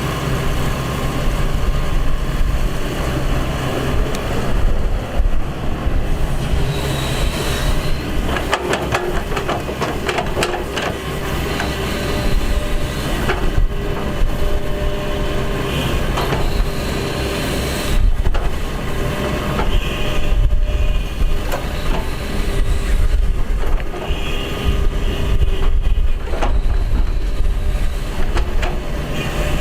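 Excavator's diesel engine running steadily under load, with a steady whine and repeated metallic knocks and clanks.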